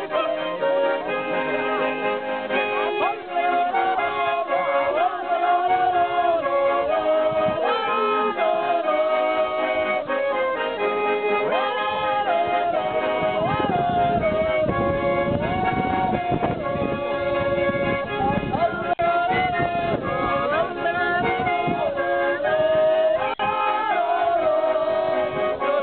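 Three Schwyzerörgeli (Swiss diatonic button accordions) playing a Swiss folk tune together, with voices singing along in wavering, yodel-like lines.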